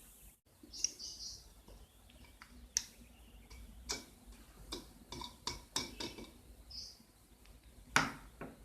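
Lovebirds giving a few short high chirps amid scattered sharp clicks and taps.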